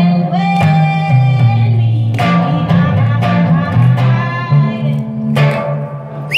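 Live band music led by an electric guitar, with chords struck every few seconds over low held notes that change every second or so.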